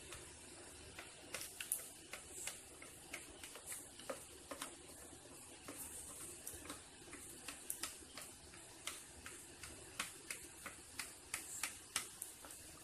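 Irregular light clicks and taps of a plastic bowl being handled and scraped while batter is poured into a cloth-lined steamer pot, over a steady low hiss from the steaming pot.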